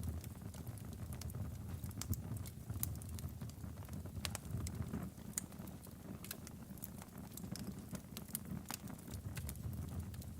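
Wood fire burning in a fireplace: logs crackling and popping in irregular sharp snaps over a steady low rumble of the flames.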